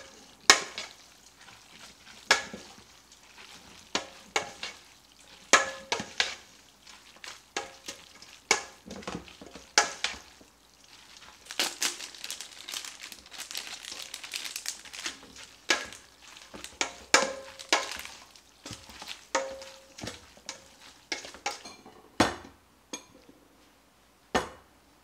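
Spoon clanking and scraping against a stainless steel stockpot, with wet squelching as spaghetti is tossed through a chunky meat sauce; the pot rings briefly after the harder knocks. About halfway through, a plastic packet crinkles for a few seconds.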